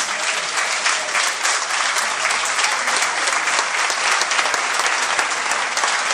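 Large audience applauding steadily: a dense, even clatter of many hands clapping.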